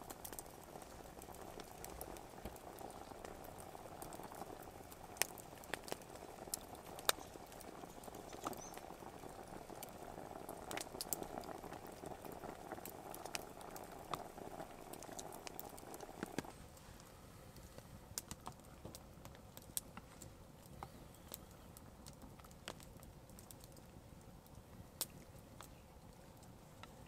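A pot of stew simmering with a low, steady bubbling, with scattered sharp ticks throughout. The bubbling cuts off abruptly about sixteen seconds in.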